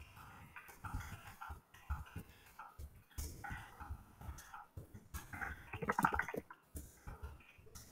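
Fast, irregular typing: each keystroke triggers a simulated mechanical-switch clack from the Mechvibes app's NK Cream (NovelKeys Cream) sound pack. A dense, louder flurry of keystrokes comes about six seconds in.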